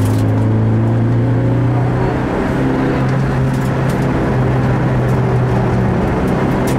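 Rally car's engine heard from inside the cabin, running hard and steady at speed, its pitch stepping up a little about two seconds in.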